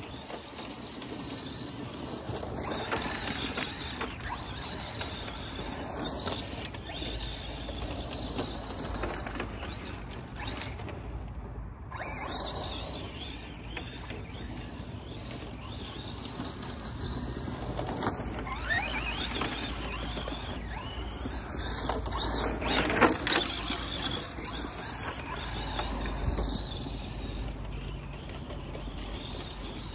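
ARRMA Mojave 4S RC desert truck driving on dirt, its brushless motor and drivetrain whining as it revs up and down repeatedly. It is loudest a little over 20 seconds in.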